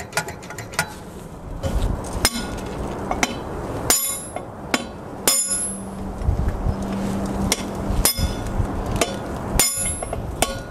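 Hammer striking a steel punch held in the hub of a truck brake drum: about a dozen sharp metallic blows at an uneven pace, several of them ringing on.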